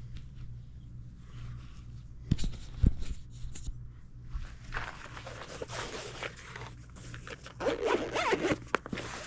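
Two sharp knocks a couple of seconds in, then irregular rasping, scraping noise that is loudest near the end, over a steady low hum.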